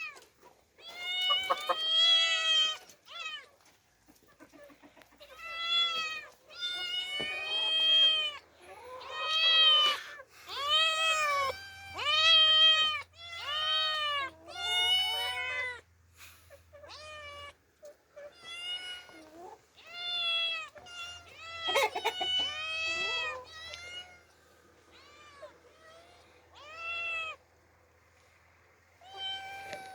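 Young cats meowing over and over: high-pitched meows that each rise and fall in pitch, about a second long, with short gaps between them. They grow quieter and sparser near the end.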